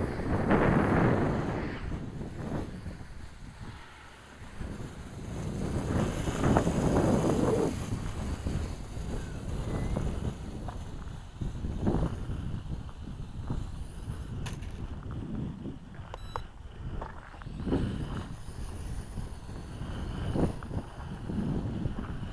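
Gusty wind buffeting the microphone, swelling and dropping in waves, over the faint high whine of a small quadcopter's motors in flight.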